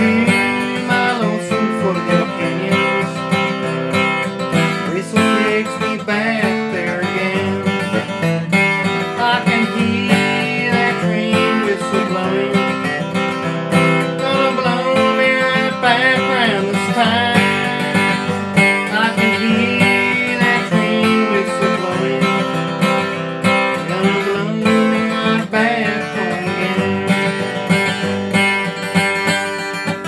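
Martin steel-string dreadnought acoustic guitar strummed and picked in a steady bluegrass rhythm.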